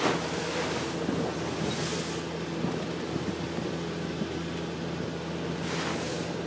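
Sailing yacht pounding through rough sea, heard from under the spray hood: waves and spray hiss over the boat in surges, right at the start, about two seconds in and near the end, over a steady low drone.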